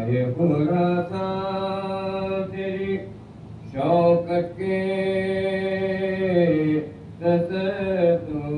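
A lone man's voice chanting soz, the unaccompanied Shia elegy of mourning, in long drawn-out held notes. It runs in phrases with a breath about three seconds in and another near the end.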